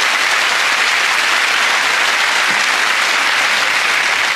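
Studio audience applauding steadily, a dense mass of clapping.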